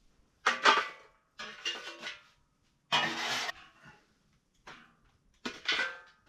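A camp wood stove's hot metal parts being handled: five separate clanks and scrapes, about a second apart, some leaving a brief metallic ring.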